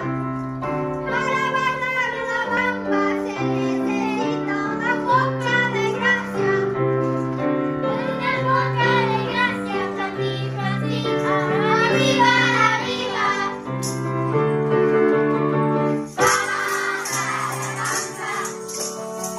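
A class of children singing a song together with instrumental accompaniment and maracas and tambourine shaking; about sixteen seconds in the sound turns fuller and brighter, with more rattling percussion.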